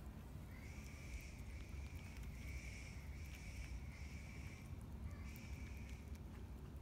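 Soft crisp clicks of a brushtail possum chewing toasted bread, under a steady high trill that comes in bouts of about a second with short breaks, like a night insect, over a low rumble.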